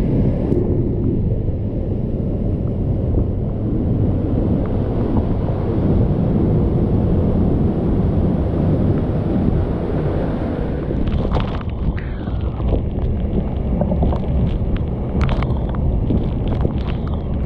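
Sgwd yr Eira waterfall in heavy flood: a loud, steady roar of falling water close by, with wind and spray buffeting the microphone. Scattered sharp ticks come in over the second half.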